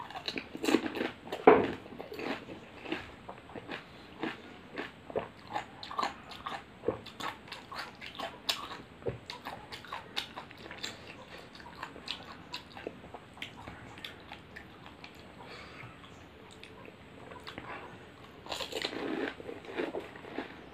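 Chewing a pani puri: the crisp hollow puri shell, filled with tamarind water, crunches loudly at the first bite, followed by many smaller crunches that thin out after about twelve seconds. Near the end, a louder rush of breath through pursed lips.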